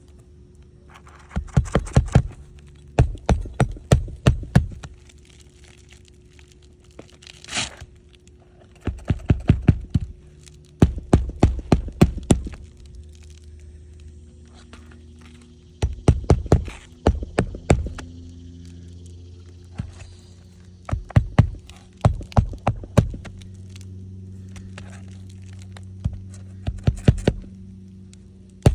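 Roofing nails being hammered into an asphalt shingle: about seven quick runs of sharp blows, several strikes to each nail, over a steady low hum.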